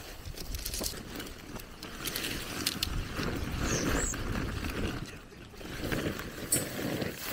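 Large plastic tarp rustling and crinkling as it is unfolded and dragged across dry grass, in uneven bursts of crackly noise.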